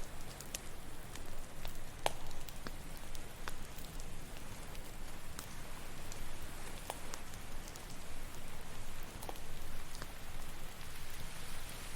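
Campfire crackling, with irregular sharp snaps and pops (the loudest about two seconds in) over a steady wash of ocean waves.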